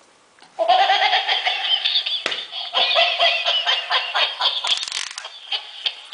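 Plush robot toy dog sounding through its small, tinny speaker: a continuous warbling electronic sound that starts about half a second in.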